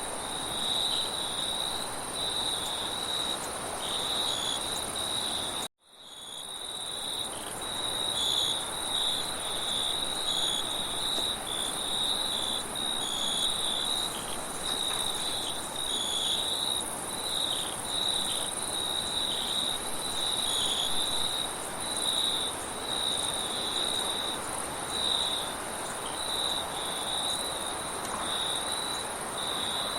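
Crickets chirping steadily in a dense high-pitched chorus over a soft hiss of wind. About six seconds in the sound cuts out completely for a moment, then fades back in.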